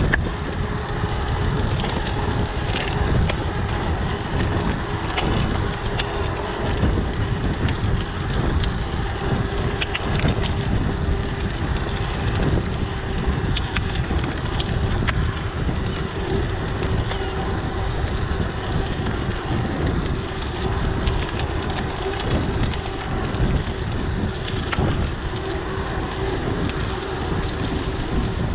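Wind rushing over a GoPro action camera's microphone on a moving mountain bike, a steady low rumble with rolling road noise underneath and scattered small clicks and rattles.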